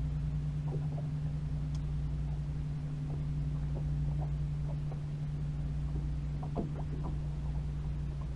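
Boat motor running steadily with an even low hum, with faint short ticks or chirps scattered over it.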